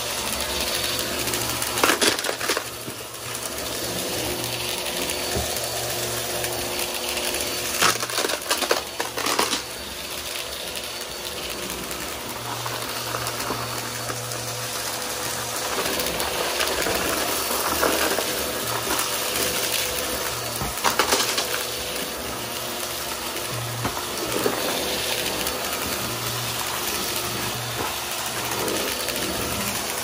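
Vacuum cleaner running steadily, with a few short clatters along the way.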